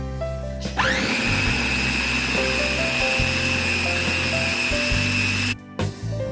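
Electric blender motor spinning up to speed with a quickly rising whine, then running steadily while it purees steamed pumpkin, and cutting off suddenly about five and a half seconds in. Background music plays underneath.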